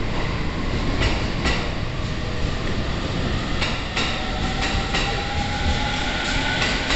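JR East E231 series electric train running with a steady rumble, its wheels clicking over rail joints several times. From about four seconds in, a faint, slowly rising whine from the traction motors and VVVF inverter comes in.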